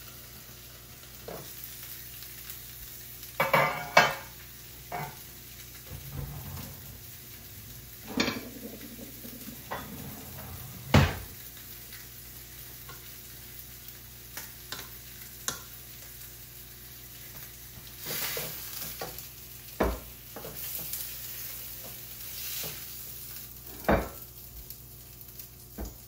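Chicken sizzling as it fries in a pan on the stove, a steady frying hiss, with scattered sharp knocks and clicks of a utensil against the pan and dishes.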